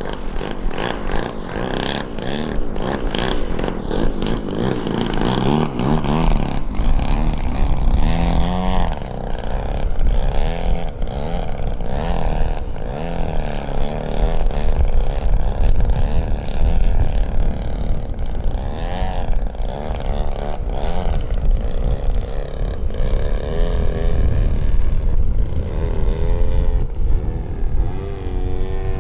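RC aerobatic plane's engine and propeller, the pitch rising and falling over and over as the throttle is worked through 3D flying.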